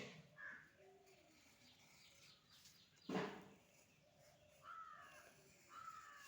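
Faint bird calls: a few short falling chirps and one louder, harsh call about three seconds in.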